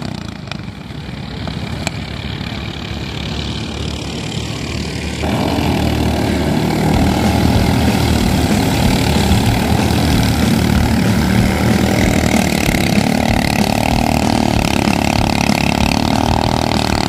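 Engines of racing klotok longboats running hard at speed. The sound steps up louder about five seconds in as a pair of boats races past.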